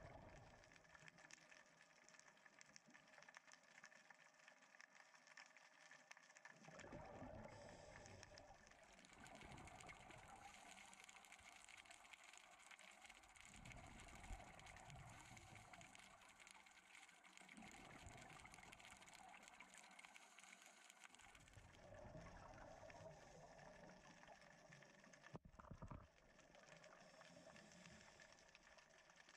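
Faint underwater sound of a scuba diver's regulator exhaust bubbles, heard through the camera housing: low bubbling rumbles lasting a few seconds each, with quieter pauses between, over a steady fine crackle. There is one sharp click near the end.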